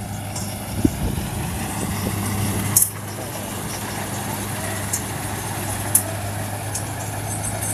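Kubota rice combine harvester running: a steady engine drone with a constant low hum. A few sharp clicks cut through it, the loudest about three seconds in.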